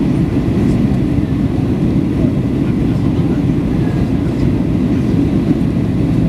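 Steady low rumble inside the cabin of a Boeing 737-800 in flight: its CFM56 engines and the airflow over the fuselage, heard from a window seat.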